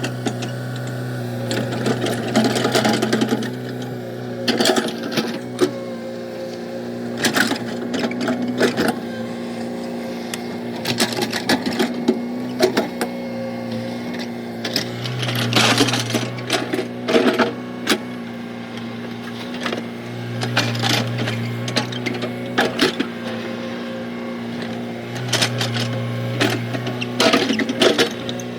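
Komatsu excavator's diesel engine running steadily, its note swelling louder several times as it works. Irregular clanks and scrapes come and go over the engine.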